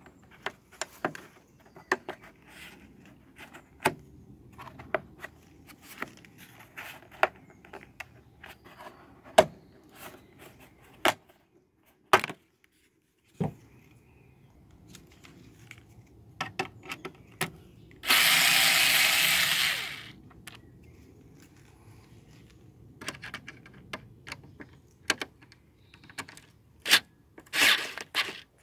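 Plastic clicks and knocks as a car's rear light cluster is worked loose from its mounting clips. About two-thirds of the way through comes a steady aerosol spray hiss lasting about two seconds, and near the end there are shorter sprays onto the lamp socket's metal contact clips.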